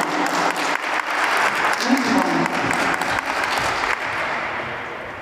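Audience applauding, with voices calling out in the crowd; the applause dies down near the end.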